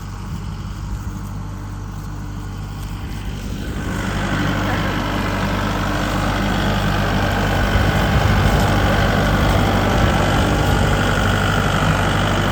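A motor vehicle's engine running with a steady low hum. From about four seconds in, a louder rushing noise builds and holds, as of the vehicle moving off.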